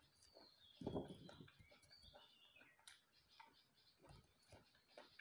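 Faint bird call: a few high whistled notes stepping down in pitch, with a soft thump about a second in and light clicks and taps from hands handling food.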